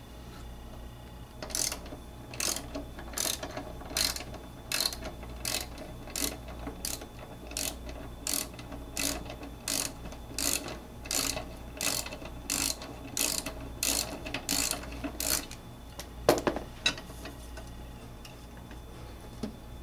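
Socket wrench ratcheting as the blade bolt of a Toro Super Recycler lawn mower is loosened: a long even run of clicks, about two to three a second. A single louder knock follows near the end.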